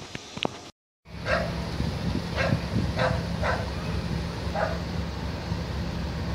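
A dog barking five times at uneven intervals over a steady low hum, after a brief dropout of the sound about a second in.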